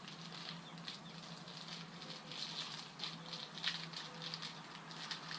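Light, irregular clicking and rustling of small hardware being handled, over a steady low hum.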